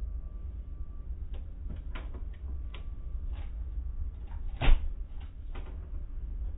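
Tunnel car wash heard from inside a car's cabin: a steady low rumble with a scattering of clicks and knocks, the loudest a sharp knock about two-thirds of the way through.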